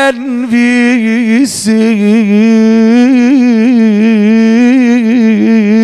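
A man singing a Shia mourning elegy (rowzeh), drawing out one long ornamented note with a wavering vibrato. He breaks briefly for a breath about a second and a half in, then carries the note on.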